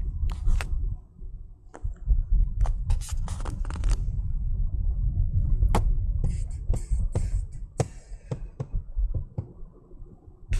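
Low, steady rumble of a vehicle driving, with many sharp clicks and scrapes scattered over it.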